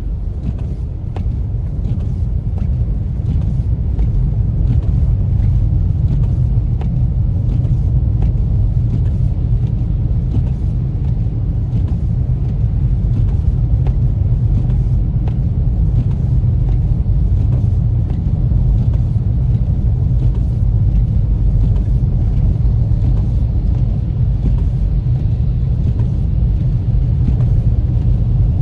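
Steady low rumble of a car's tyre and road noise, heard from inside the cabin while driving on a snow-covered road, with faint irregular ticks over it.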